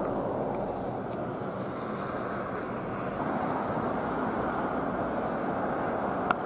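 Steady outdoor background noise, then near the end a single sharp crack of a cricket bat hitting the ball.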